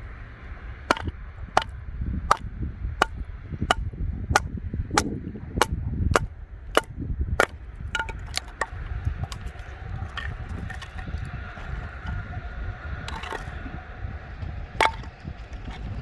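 About a dozen sharp, evenly spaced strikes, a little under one a second, each with a brief ringing tone, then a few scattered knocks and one last strike near the end, over wind rumbling on the microphone.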